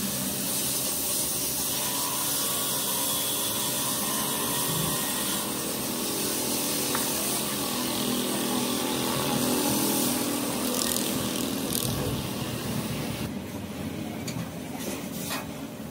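Steady machine noise with a loud hiss over it, which thins out and drops in level about thirteen seconds in.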